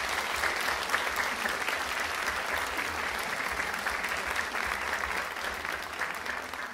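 Concert audience applauding: dense, steady clapping from a full hall that begins to ease off near the end.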